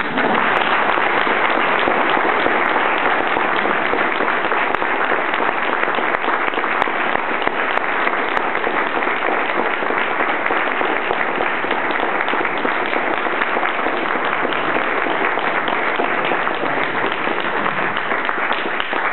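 Audience applauding, starting all at once and going on steadily, easing a little near the end.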